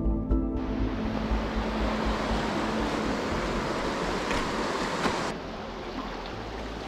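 Steady rushing hiss of a clear, shallow stream running over stones, with the last notes of soft music fading in the first second. About five seconds in, the water sound drops to a quieter, duller flow.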